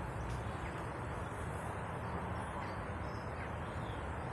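Steady outdoor background hum with a few faint bird chirps.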